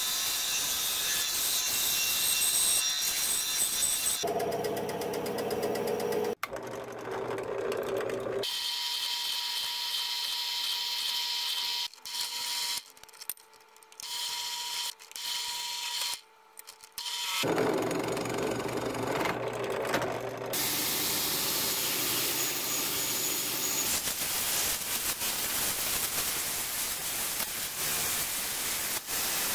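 A run of shop power tools working a cocobolo wood knife handle. First a bandsaw cuts the wood. Around a third of the way through, a drill press bores pin holes, with a steady motor tone and several dropouts. In the last part, a belt grinder sands the handle in a steady noisy stretch.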